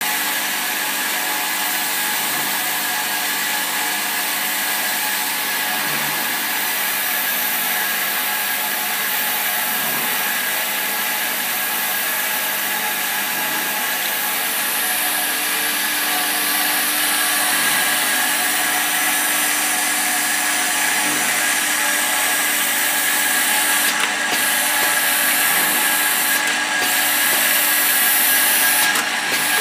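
Automatic e-liquid bottle filling and capping machine running: a steady mechanical whir and hum, with a faint low thud repeating about every three to four seconds.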